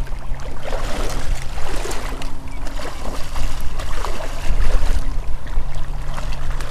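Shallow bay water splashing and sloshing around wading legs, in uneven bursts, over a steady low hum.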